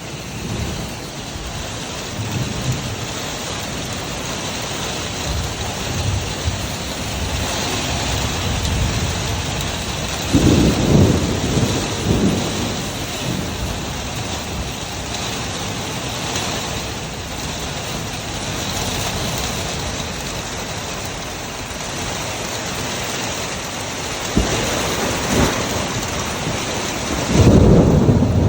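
Steady heavy rain from a hurricane storm, with two louder low rumbles, one about ten seconds in lasting a couple of seconds and another near the end.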